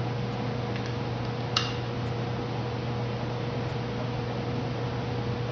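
Steady machine hum, like a running fan, with one short, sharp click about a second and a half in.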